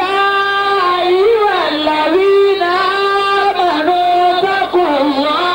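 A voice singing a slow chant, holding long notes that slide up and down between pitches.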